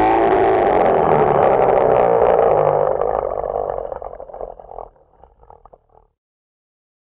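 A bear's roar played as a sound effect for the polar bear: one long growling roar, steady for about three seconds, then fading and breaking up into a rough rattle before stopping about six seconds in.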